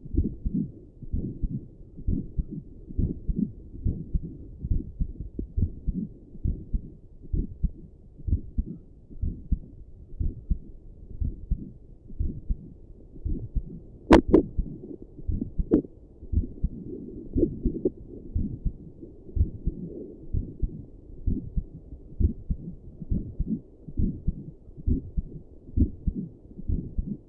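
Human heartbeat picked up through a stethoscope and a Doppler probe: a steady train of low, dull beats, a little faster than one a second. About halfway through, a sharp click breaks in, followed by a smaller one just after.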